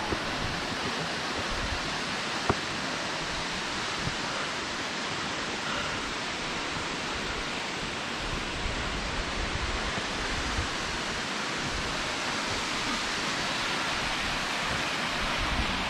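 Steady, even rush of falling water from a waterfall, with one short sharp click about two and a half seconds in.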